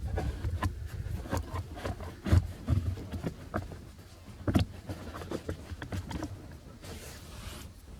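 Irregular knocks, clicks and rubbing of hands and tools working metal parts, as a brace is fastened in place under a pickup's dashboard.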